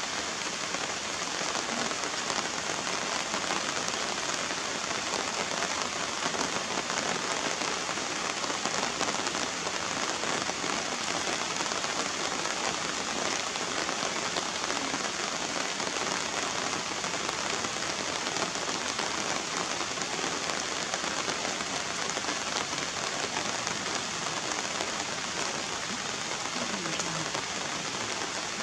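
Steady rain falling on wet surfaces and puddles, an even hiss that does not let up.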